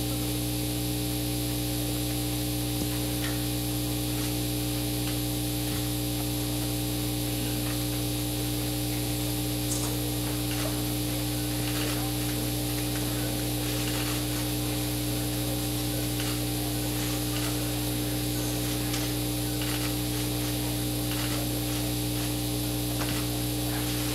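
Steady electrical mains hum, a fixed low tone with several higher overtones and no change in level. Faint scattered clicks and rustles sound over it now and then.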